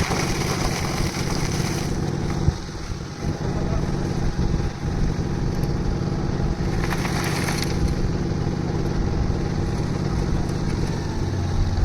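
Concrete mixer's engine running steadily, with two short spells of higher-pitched noise, one near the start and one about seven seconds in.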